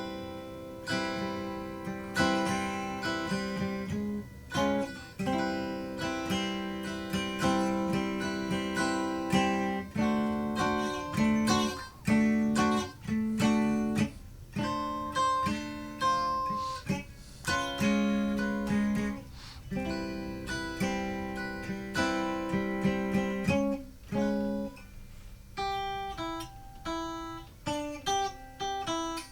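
Electric guitar played through a Sound City Master Lead 50 amp and heard through PA speakers: strummed and sustained chords that change every second or two, giving way to single picked notes in the last few seconds.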